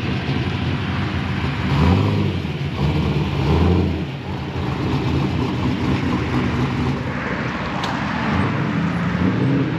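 Cars pulling out of a lot one after another: a C6 Corvette's V8 revving as it pulls away, swelling twice, then a Nissan Skyline's engine rising near the end as it follows.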